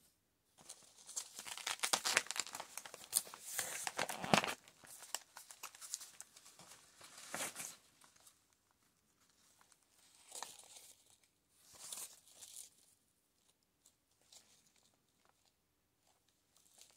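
Fabric and paper scraps crinkling and rustling as they are handled, in a long run over the first few seconds and then a few short bursts with quiet gaps between.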